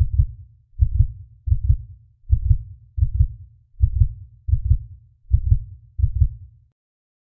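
Heartbeat sound effect: a steady low double thump (lub-dub) at about 80 beats a minute, which stops shortly before the end.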